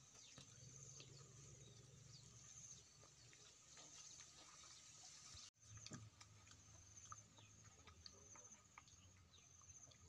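Near silence: faint outdoor ambience with a steady, high, faintly pulsing insect drone and scattered small chirps and clicks. The sound drops out completely for a moment about halfway through.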